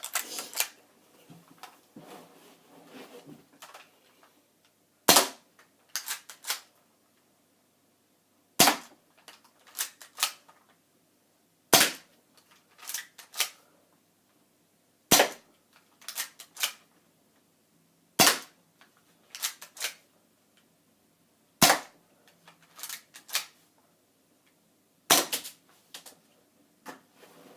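A BB gun is fired seven times at an even pace, one shot about every three and a half seconds, starting about five seconds in. Each sharp crack is followed a second or so later by two or three lighter clicks.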